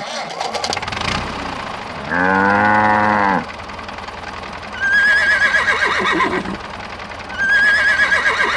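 A cow moos once, about two seconds in, then a horse whinnies twice, the calls about two and a half seconds apart, over a steady engine-like rumble.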